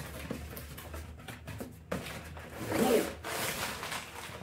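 Cardboard packaging being torn open and rubbed, with a tripod in a soft nylon case dragged out of the box. The scraping and tearing is loudest about three seconds in.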